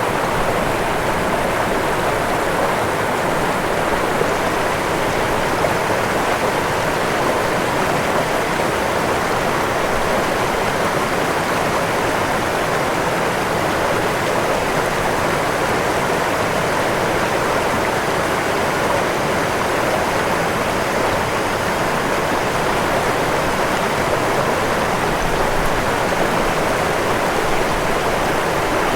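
Waterfall rushing: a steady, even roar of falling and churning water.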